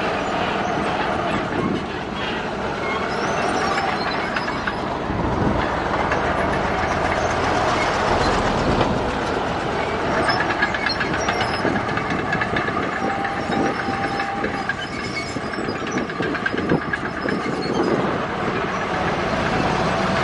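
Crawler bulldozer working: its diesel engine runs steadily under load while the steel tracks clatter, with a few brief squeals.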